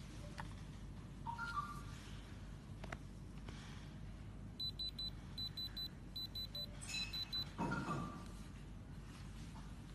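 Electronic beeping: short high beeps in quick groups, repeating for about three seconds around the middle, like a digital alarm. Faint clicks and a couple of short chirps are heard around it.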